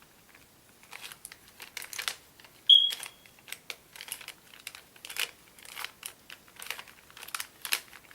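Rubik's Cube faces being turned by hand: quick plastic clicks and rattles in uneven runs. A brief high squeak about three seconds in stands out as the loudest sound.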